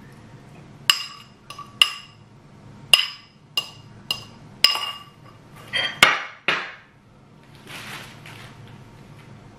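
Metal fork knocking and scraping against a white ceramic bowl as scrambled egg sauce is scraped out onto a plate: about six ringing clinks, then a louder scrape and clatter around six seconds in. A thin plastic bag rustles near the end.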